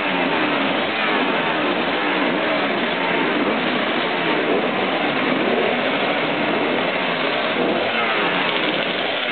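Racing motorcycle engines running and revving, the pitch rising and falling over and over without pause.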